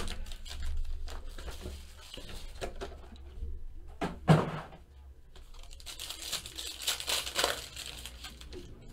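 Foil trading-card packs (2015 Panini Prizm baseball) being handled and torn open, their wrappers crinkling and crackling in short bursts. There is one brief louder sound about four seconds in.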